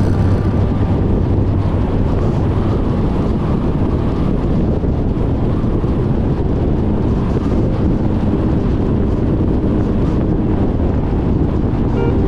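Car travelling at motorway speed: a steady rush of road and wind noise with a low rumble.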